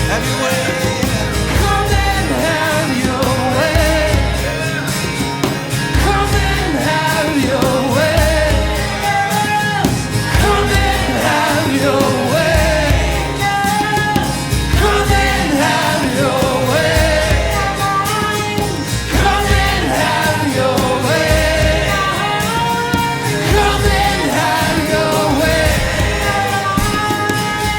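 Worship band music with a singer's voice carrying a melody over it, and a steady low bass pulse.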